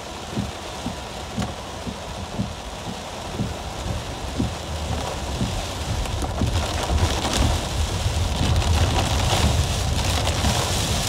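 Heavy rain pelting a car's roof and windshield, heard from inside the cabin as a dense hiss with many irregular low thumps. About six seconds in the rain grows louder and hissier.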